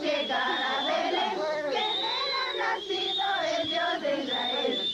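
Many voices singing together in a crowd, overlapping, with a high wavering whistle-like tone running above them.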